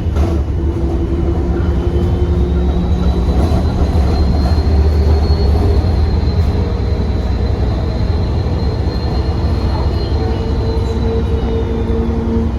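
Single-deck bus's diesel engine pulling hard with a loud turbocharger whistle. The whistle rises about two seconds in, holds steady, and fades near the end as the engine eases off.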